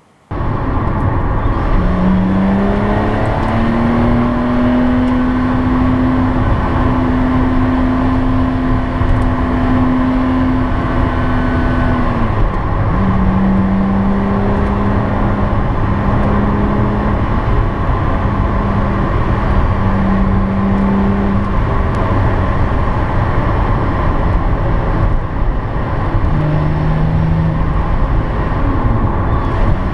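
The Lotus Exige S Club Racer's supercharged 3.5-litre Toyota V6 pulling on the road, heard from inside the cabin over loud road and tyre noise. The engine note climbs in the first few seconds, holds steady, drops about twelve seconds in and settles lower, then dips again near the end.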